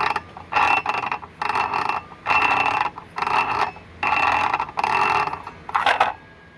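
Ryobi PBLCS300 brushless circular saw, unpowered, making a funny mechanical noise as its blade is turned by hand. It comes in short repeated strokes about once a second, each with a steady high tone running through it. The owner cannot tell whether this is normal or the sign of a faulty saw.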